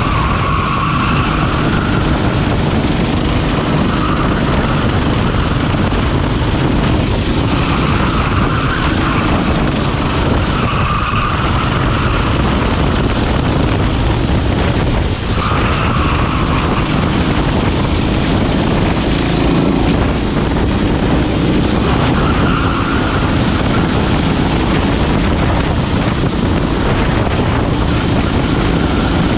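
Rental go-kart engine running hard through a racing lap, heard onboard with wind rushing over the microphone.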